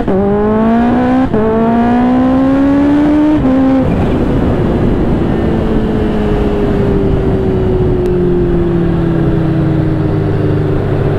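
Sport motorcycle with an aftermarket carbon exhaust accelerating hard. Engine pitch climbs steeply, dips briefly at an upshift about a second in, climbs again and shifts near four seconds. It then cruises, with the engine note falling slowly under heavy wind and road rush.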